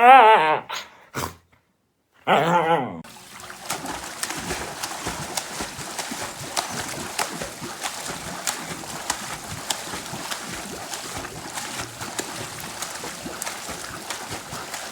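A dog giving a drawn-out, wavering howl-like 'talking' vocalization that breaks off about half a second in. After a short gap and another brief pitched call, a steady hiss with scattered clicks follows.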